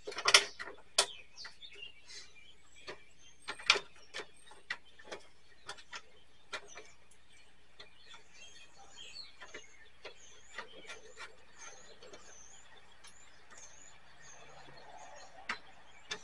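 Scattered clicks and knocks of plastic and metal as the casing of a Quasar VR-1000 VCR is handled and its front panel worked loose, the sharpest knocks in the first second and near four seconds in. A bird chirps repeatedly in the background midway through.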